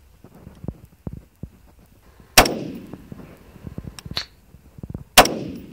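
Two rifle shots from a 20-inch Colt AR-15 A4 firing 77-grain 5.56 match ammunition, about three seconds apart, each trailing off in a ringing echo. Each shot is followed about two seconds later by a fainter sharp crack.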